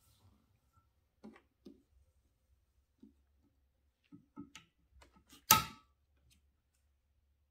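Scattered light clicks and taps of a small brushed DC motor and its metal shaft pulley being handled, with one sharper metallic click that rings briefly about five and a half seconds in.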